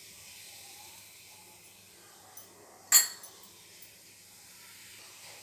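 A steel spoon clinks once sharply against a cooking pan about three seconds in, as ajwain seeds are tipped into the water, with a couple of faint ticks around it. A faint steady hiss runs underneath.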